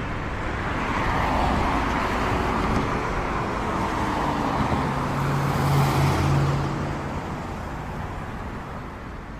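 Road traffic sound with a motor vehicle passing: it grows louder to a peak about six seconds in, then fades away.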